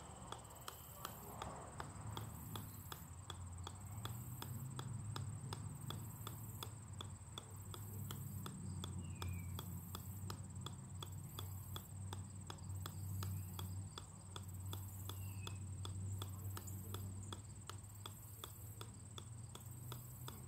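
A golf ball bouncing again and again on the steel head of an 8-pound sledgehammer: a steady, even run of light ticks, about two to three a second.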